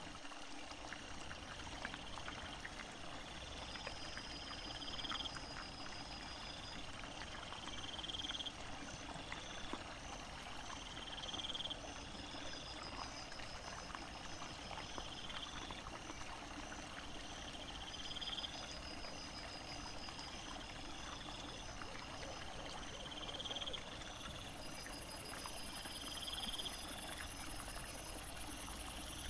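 Night woodland ambience by a streamlet: a short rising insect-like chirp repeating about every two seconds over a steady hiss of water, with scattered rustles and clicks of wild boar rooting in leaf litter. Near the end a steady high-pitched insect shrill joins in.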